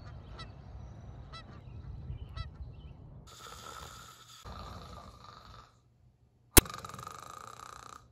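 Geese honking over a low rumble for the first three seconds, then a man snoring: two long snores with a short silence between them. A sharp click, the loudest sound here, comes just as the second snore begins.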